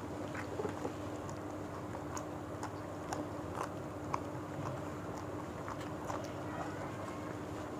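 Chewing and mouth smacks of people eating rice and fish with their hands: scattered soft clicks and smacks, over a steady faint hum.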